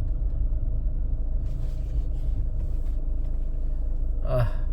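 Low, steady road rumble of a car heard from inside its cabin while creeping along in slow traffic.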